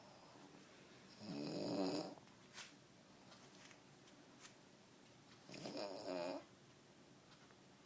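A man snoring: two snores about four seconds apart, each lasting about a second.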